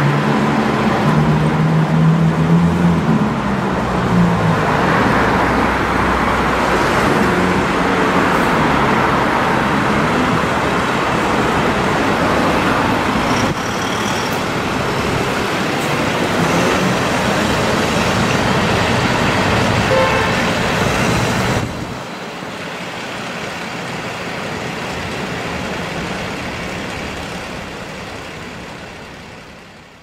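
Steady urban road traffic: engines and tyre noise from passing cars and trucks, with a heavy vehicle's engine running low and close in the first few seconds. The sound drops abruptly to a quieter stretch of traffic about three-quarters of the way through, then fades out.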